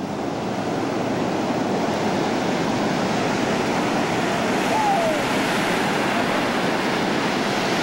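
Ocean surf breaking on a sandy beach: a steady, even wash of waves. A short faint falling call is heard about five seconds in.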